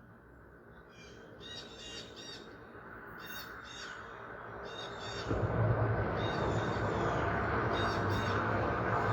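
A bird calls over and over in short, harsh, crow-like caws. About five seconds in, a low steady rumble comes in and becomes the loudest sound.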